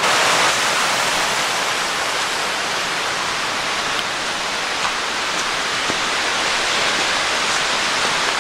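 Tall waterfall pouring down: a loud, steady rush of falling water.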